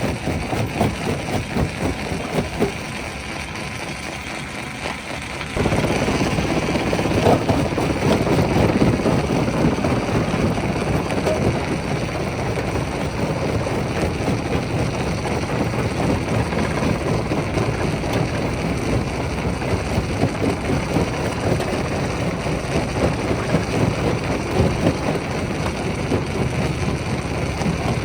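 Rock crusher running under load, its engine drone mixed with a dense clatter and grinding of stone. It gets suddenly louder about five seconds in.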